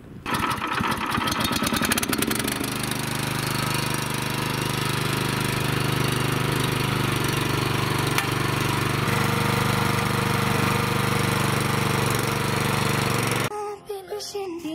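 Walk-behind tiller's small single-cylinder petrol engine running steadily under load as its rotary tines churn garden soil. It starts abruptly and cuts off suddenly near the end.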